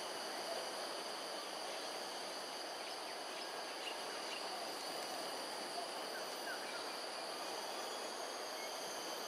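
Steady outdoor ambience: insects trilling in several steady high tones over an even hiss, with a few faint short chirps.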